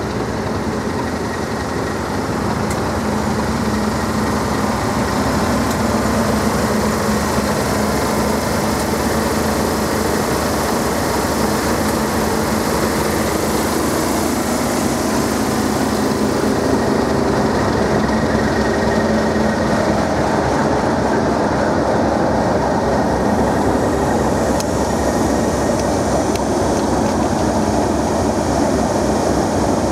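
English Electric 12CSVT V12 diesel engine of a Class 37 locomotive running as the train runs slowly into the platform. It gets louder over the first few seconds as the locomotive draws near, then holds loud and steady as it passes close by and the coaches roll past.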